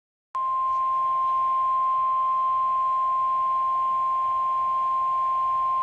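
NOAA Weather Radio 1050 Hz warning alarm tone: one steady, unbroken beep, starting a moment in, that announces a warning broadcast. It plays over faint radio hiss.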